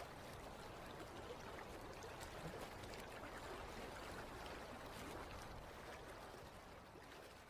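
Waterfall sound effect: a steady rush of falling water with small splashes, starting to fade out near the end.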